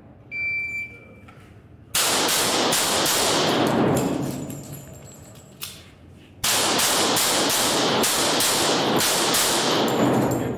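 A shot-timer start beep, then a handgun fired in two fast strings of shots, about three a second, with a pause of a couple of seconds between them, echoing in an indoor range.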